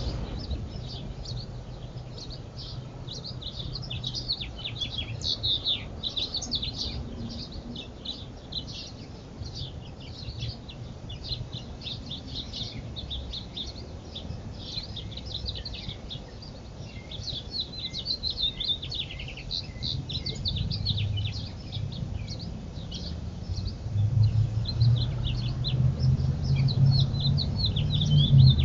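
Many small birds chirping and twittering, a dense, continuous chorus of quick high chirps. A low rumble builds and grows louder over the last few seconds.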